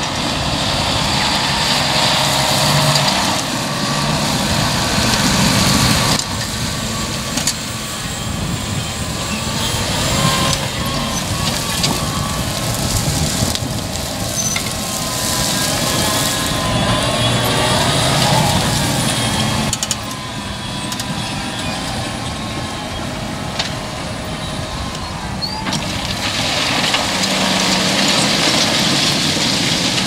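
John Deere 6250R tractor's six-cylinder diesel engine running under load while pulling a six-furrow Lemken reversible plough. The sound changes abruptly every several seconds.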